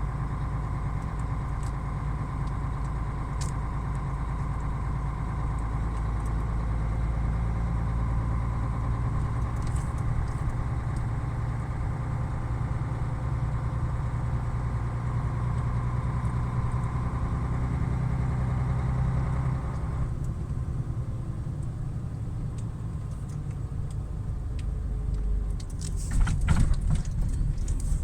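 Truck engine running steadily. About twenty seconds in its note drops to a lower, quieter running, and near the end there is a short burst of clicking and rattling.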